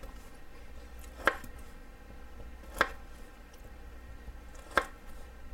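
Knife knocking against a cutting board three times while slicing pepperoni, the knocks about one and a half to two seconds apart.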